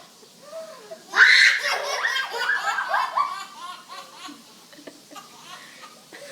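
A baby's belly laughter: a run of quick laughs bursting out about a second in, then tailing off into softer giggles.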